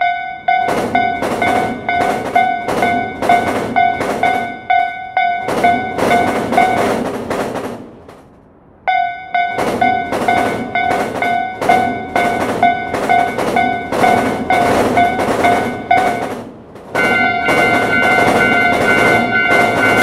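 Railroad crossing warning bell ringing at about two rings a second over a drum-kit beat. It breaks off for about two seconds near the middle, and a higher-pitched crossing signal tone takes over a few seconds before the end.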